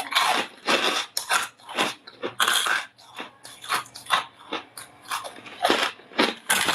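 Someone biting and chewing soft, crispy freezer frost: a run of crisp crunches, about two a second.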